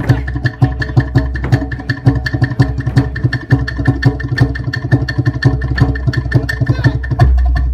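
Loud, somewhat distorted dance music: fast, even percussion strikes over a steady droning tone, with the bass growing heavier about seven seconds in.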